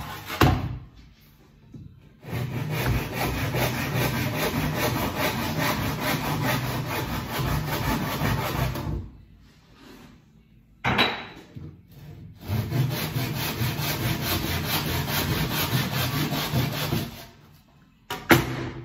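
Handsaw trimming off tulipwood support fillets on a snooker cushion rail, in two runs of quick back-and-forth strokes of about six seconds each with a pause between. A sharp knock falls in the pause and another near the end.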